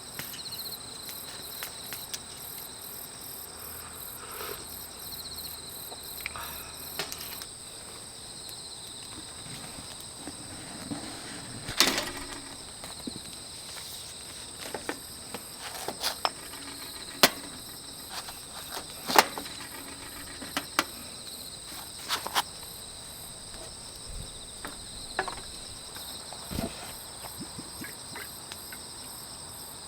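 Steady high insect chorus trilling throughout, pulsing more quickly in the first several seconds. Scattered sharp clicks and knocks sound over it, a few of them louder than the rest.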